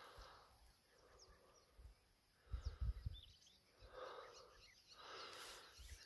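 Quiet outdoor ambience with a few faint, distant bird chirps and a cluster of soft low thumps about halfway through.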